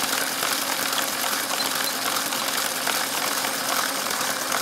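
Small Lego electric motors whirring steadily as they spin the car wash's brushes and drive the conveyor, with the brushes swishing over a toy car.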